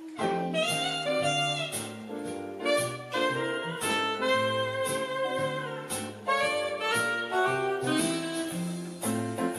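Instrumental background music that cuts in abruptly, with a bass line, a lead melody and a steady beat.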